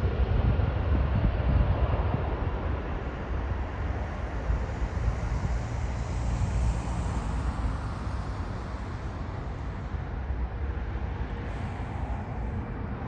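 A landing jet airliner's engine noise dies away after it passes, with strong wind buffeting the microphone as a low rumble.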